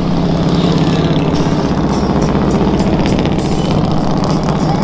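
Bagger motorcycles riding past one after another, their engines running loud and steady, with a crackle from the exhaust in the middle.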